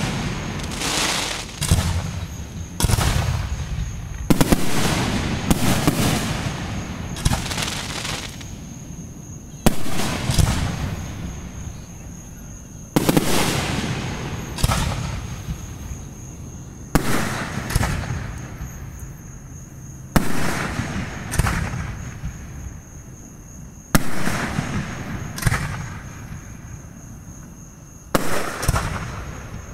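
Aerial fireworks shells bursting overhead: a sharp bang every one to four seconds, each trailing off in a rumbling echo.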